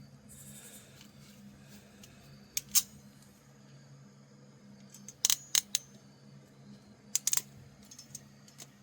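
Ratcheting wire-crimping tool clicking as it is squeezed and released: sharp clicks in three short clusters a couple of seconds apart.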